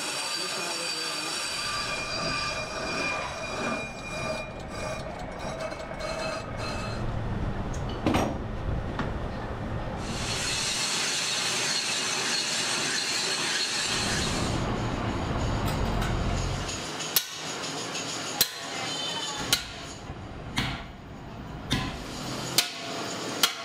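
Metal lathe cutting steel, with a high squeal from the cutting tool over the machine's running noise. Near the end come a series of sharp sledgehammer blows, about one a second.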